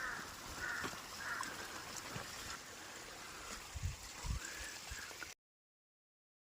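A steady outdoor hiss with several short mid-pitched calls and a few low bumps on the microphone. The sound cuts out to dead silence about five seconds in.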